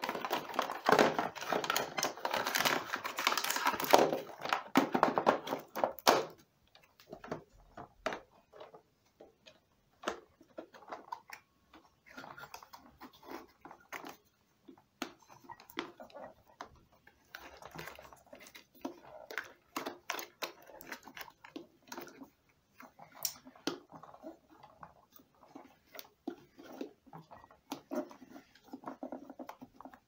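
Plastic parts of an Arnica Bora 4000 vacuum cleaner clicking, knocking and rubbing by hand as a replacement motor and its plastic mount are fitted and pressed into the housing. The handling is busy for the first six seconds, then turns to scattered taps and clicks.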